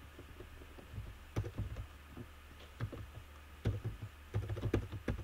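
Typing on a computer keyboard: irregular runs of keystrokes, with the busiest clusters in the second half.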